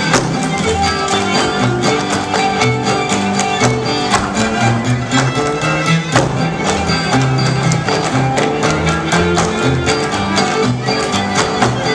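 Live old-time string band, with fiddle, upright bass and guitar, playing a lively dance tune, with the quick sharp taps of clogging shoes striking the stage mixed in.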